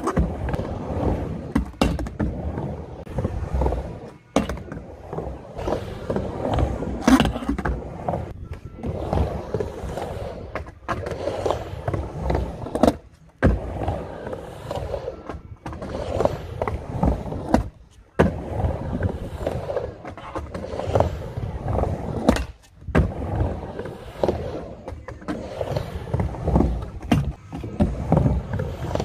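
Skateboard rolling back and forth on a backyard mini ramp, with repeated sharp knocks and clacks of the board and trucks.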